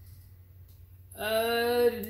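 Low room hum for about a second, then a voice holding one steady, drawn-out note, like a hum.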